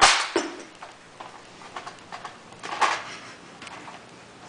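Toy foam-dart blasters in a scuffle: a loud burst of noise right at the start, scattered faint clicks, and another short burst of noise about three seconds in.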